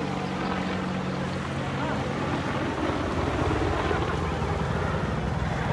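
AH-64 Apache attack helicopter flying overhead, its rotor and twin turboshaft engines making a steady low hum. About a second and a half in, the hum gives way to a steady rushing noise as it flies off, with wind on the microphone.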